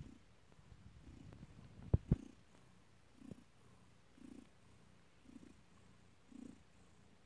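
Cat purring while nursing kittens: a low purr that swells about once a second. Two sharp clicks come close together about two seconds in.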